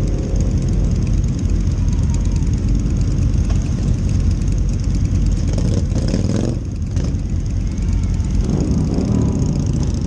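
Motorcycle engines running at low speed in a slow group ride, heard close up from on board one of the bikes as a steady low rumble. The sound dips briefly about two-thirds of the way through.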